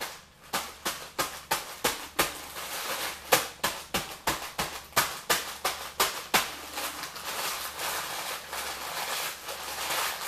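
Crackers being crushed by hand inside a plastic bag: sharp crunches about two a second for the first six seconds or so, then a softer, steady crinkling rustle.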